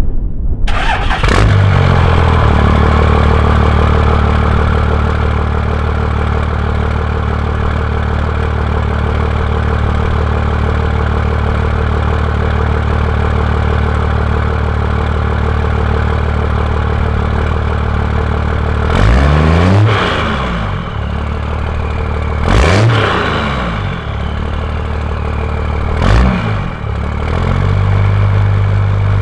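Cummins 5.9 turbo-diesel inline-six in a Dodge Ram, heard through a new 5-inch turbo-back exhaust. It starts about a second in, settles into a deep, steady idle, then is revved three times in quick blips, each rising and falling back to idle.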